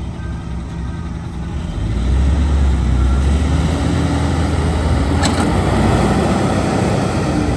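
Heavy diesel engine running, then rising to a louder, steady labouring note about two seconds in, as the machine takes load.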